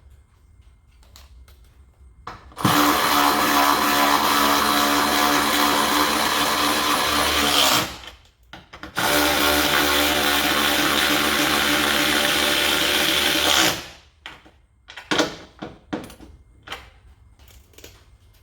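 A cordless power tool's motor runs at a steady pitch twice, about five seconds each with a short break between, spinning the 13 mm mounting nuts onto the truck's studs. A few short clicks and knocks follow near the end.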